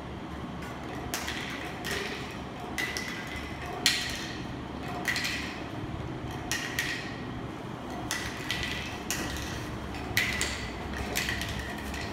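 Induction cap sealing machine running, its cooling fans and conveyor making a steady low noise. Small hollow plastic bottles knock and clatter about a dozen times at uneven intervals, each knock with a brief ringing tone, as they are set on the belt and drop off its end onto the floor.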